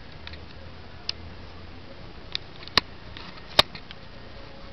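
BB gun shots: two sharp cracks a little under a second apart, shortly after the middle, with a few fainter clicks before them.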